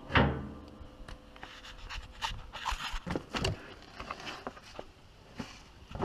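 A short breath or grunt at the start, then scattered light clicks and scrapes of hands working around the buggy's frame and engine.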